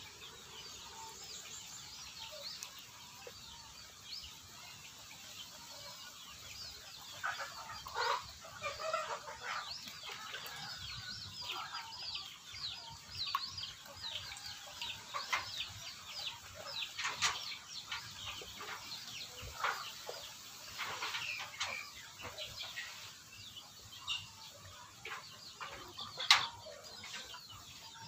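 Chickens clucking and chirping, many short calls scattered throughout, with one sudden louder sound near the end.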